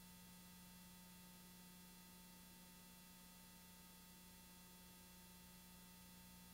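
Near silence: only a faint, steady electrical hum and hiss, with no other sound.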